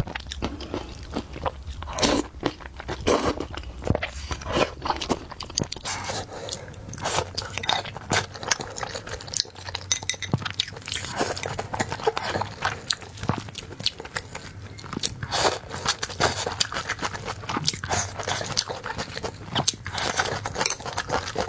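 Close-miked person eating: chewing with crunchy bites, many small irregular clicks.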